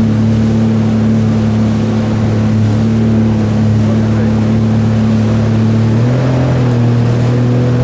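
Speedboat engine running at speed under way, a steady drone over a continuous hiss. Its pitch steps up slightly about six seconds in as the engine speeds up a little.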